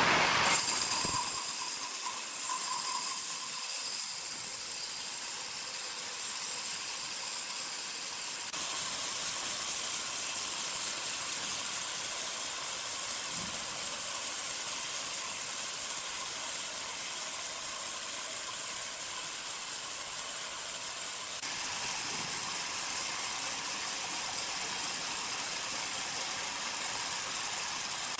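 Steady hissing noise of sawmill machinery, mostly high-pitched, stepping up abruptly about eight seconds in and changing again near twenty-one seconds.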